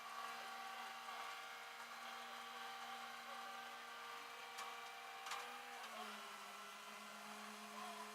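Faint steady mechanical hum from the tow truck running as it gets ready to load the truck. The hum dips slightly in pitch about six seconds in, and there are a couple of light clicks.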